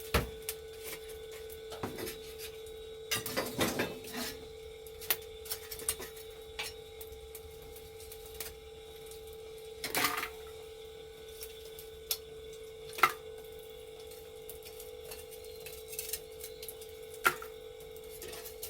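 Scattered clinks and knocks of dishes and utensils being handled, a few seconds apart with a short cluster about three seconds in, over a steady faint hum.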